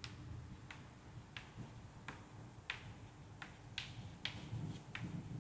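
Chalk writing on a chalkboard: a string of faint, short chalk taps and strokes, about one every half second, as a word is written.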